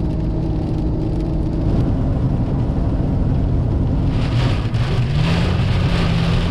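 Steady engine and tyre drone inside a truck's cabin on the road, with rain drumming on the windshield and roof that grows louder from about four seconds in.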